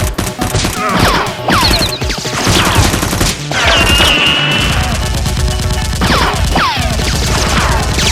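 Rapid automatic gunfire sound effects, a dense stream of shots with several falling whines among them.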